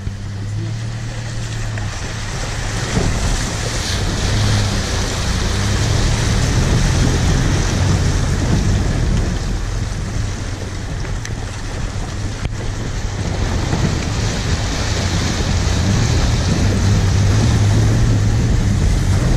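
A vehicle's engine running steadily at low speed while it fords a swollen river, with rushing, splashing water against the body and wind noise on the microphone. The water noise grows louder a few seconds in and again near the end as the vehicle pushes through the current.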